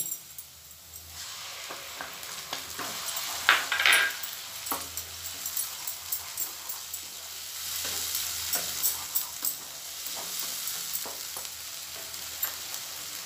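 Tomato, garlic, ginger and green chilli paste sizzling in hot ghee with fried onions in a nonstick kadai, stirred with a wooden spatula that scrapes and taps the pan now and then.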